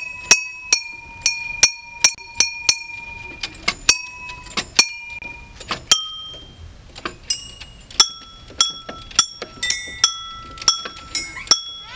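Metal chimes in a playground music box struck by hand again and again at an irregular pace, each strike ringing on as a clear bell-like note. Several different pitches sound, one high note repeated through the first few seconds and a lower one later.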